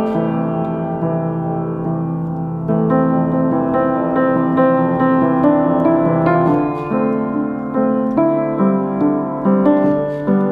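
Background music: a piano playing sustained chords, with the notes coming quicker and more evenly over the last couple of seconds.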